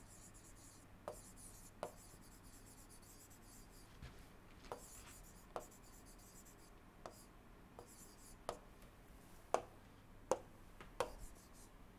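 A digital pen writing on an interactive display board: a string of faint, short, irregular taps and clicks as the pen strikes and lifts off the screen, a few of them louder near the end. A low steady hum sits underneath.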